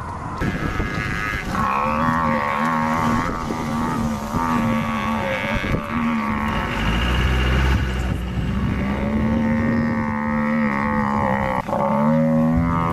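An African buffalo bellowing in distress while lions hold it down: long, drawn-out, wavering calls, repeated several times, with a vehicle engine running low underneath.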